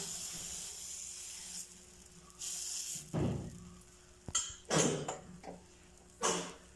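Dosa batter sizzling faintly on a hot nonstick tawa, the hiss fading over the first second or two. Several brief noisy bursts of utensil handling follow, about three, five and six seconds in.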